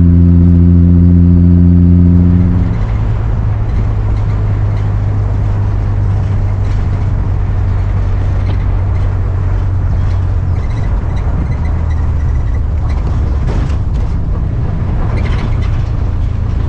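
Ford Ranchero pickup's engine pulling loudly as it climbs, heard from inside the cab; about two and a half seconds in the engine note drops away and it runs on more quietly under steady road noise, with a few light knocks near the end.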